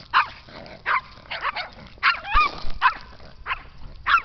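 Animal calls: short, sharp yelps, about ten of them at irregular intervals, each with a quick rise and fall in pitch.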